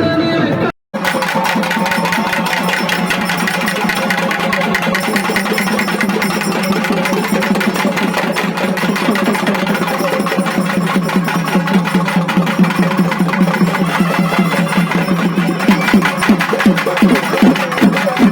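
Loud music with a very fast, driving beat that sounds almost machine-like; the separate strokes stand out more clearly near the end.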